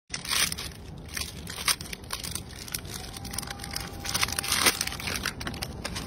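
Plastic snack wrapper crinkling and crackling as a macaque handles it at its mouth: a run of sharp, irregular crackles.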